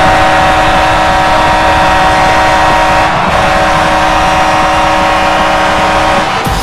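Detroit Red Wings goal horn blaring: a loud, deep horn chord held in long blasts, with a brief break about three seconds in, cutting off near the end.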